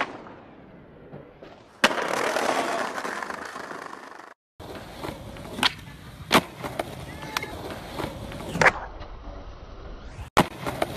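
Skateboard on concrete: a sharp smack, then about two and a half seconds of loud scraping as the board slides along a ledge; then, after a cut, wheels rolling with several sharp pops and clacks of the board landing.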